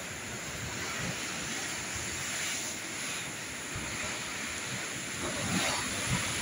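Rough sea surf surging and foaming against the base of a rock cliff, a steady wash of breaking water, with wind buffeting the microphone. The surge grows louder near the end.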